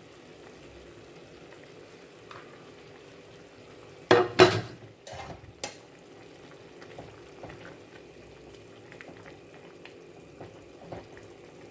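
Seasoned chicken pieces sizzling in a pot, with two loud knocks about four seconds in and a few lighter clicks after them, as from a utensil against the pot.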